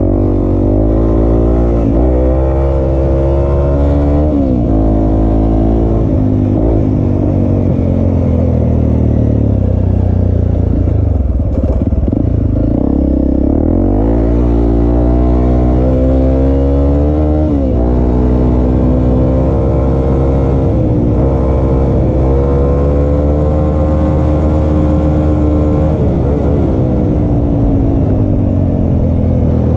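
Motor vehicle engine running while driving, its pitch rising as it speeds up and dropping sharply several times at gear changes.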